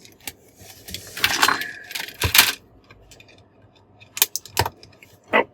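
Small laptop parts being handled: a scraping rustle about a second in, then a few sharp clicks and light clinks of plastic pieces and small screws.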